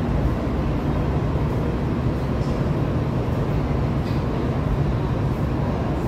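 Subway work train standing at the platform, running with a steady low rumble that neither rises nor falls.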